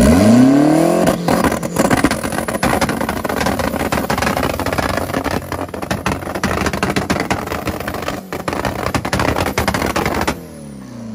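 A Nissan's engine revs up hard and then is held on a two-step rev limiter for about ten seconds, a fast crackle of exhaust pops and bangs. It cuts off abruptly near the end and the revs fall away.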